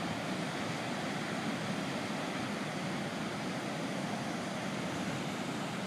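Heavy surf from a large hurricane swell breaking: a steady, even wash of crashing waves and white water.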